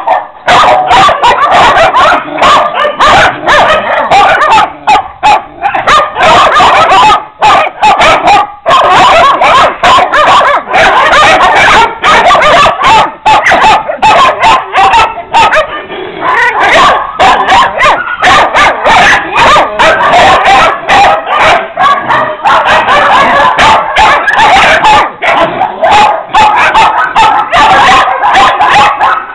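Many kennelled dogs barking and yipping at once, the barks overlapping without a pause and very loud.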